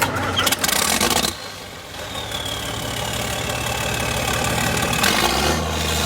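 A tractor engine starting and then running steadily; a deeper steady hum joins about five seconds in.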